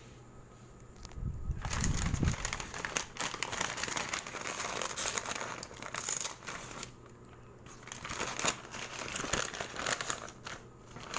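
Paper shopping bag crinkling and rustling as hands pull it open and dig inside. It starts about a second and a half in, with a dull low handling thump at the start, and has short pauses near the middle and the end.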